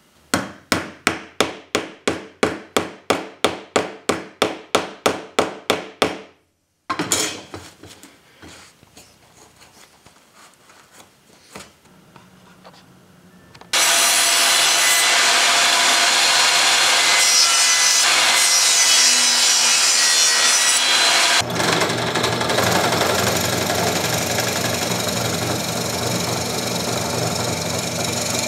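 About eighteen sharp strokes on wood, about three a second, followed by quieter scraping and clatter. About fourteen seconds in, a table saw runs loudly and steadily for some eight seconds. Then a drill press runs steadily, its bit boring into a wooden dowel.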